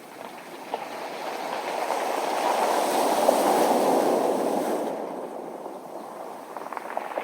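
A wave washing up a beach of round, smooth pebbles. The surge swells for a few seconds, then draws back, and the next wave begins near the end with the stones clattering and clicking against each other.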